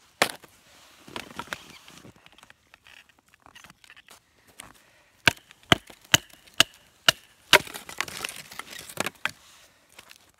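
Large fixed-blade knife chopping into the end of an upright wooden stick, splitting it: a sharp wooden knock at the very start, then a run of six sharp knocks about two a second in the middle, followed by a rougher, noisier stretch.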